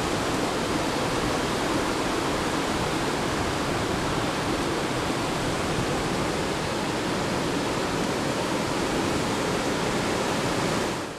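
Ocean surf washing in over the sand: a steady, even rush of water noise that dips briefly near the end.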